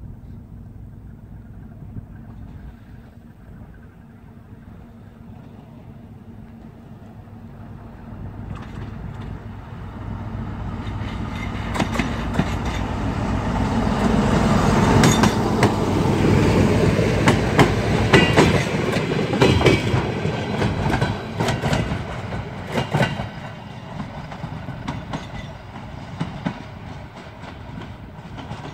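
Motor car of a D1 diesel multiple unit working under load up a 16.8‰ grade: its diesel engine's steady drone grows as it approaches and is loudest as it passes close, about halfway through, with the wheels clicking over rail joints. The sound then fades as it moves away.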